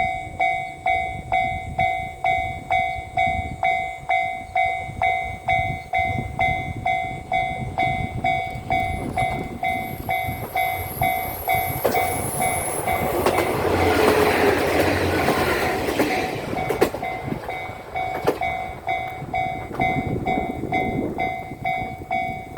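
A Japanese level-crossing warning bell rings steadily, about one and a half strokes a second. Partway through, a two-car KiHa 40 diesel railcar train passes with a rising and falling rumble of engine and wheels and a few sharp wheel clacks over the rails.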